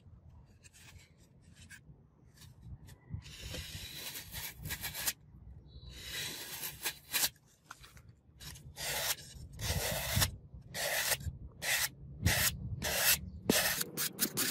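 A sharp knife with a blade made from bearing steel slicing through a block of green floral foam. The cuts are scratchy and rasping: they start about three seconds in with a few long strokes, then turn into shorter, quicker ones toward the end.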